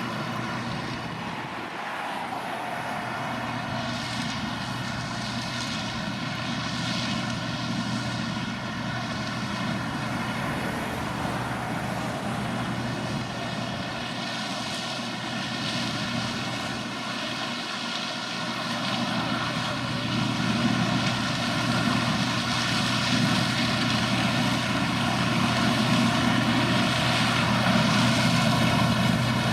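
Engine of a large farm machine running with a steady drone, growing louder toward the end.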